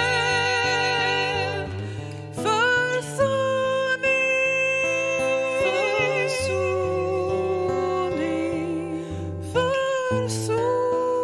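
Two women singing a slow song in harmony to acoustic guitar accompaniment, holding long notes with vibrato and pausing briefly between phrases.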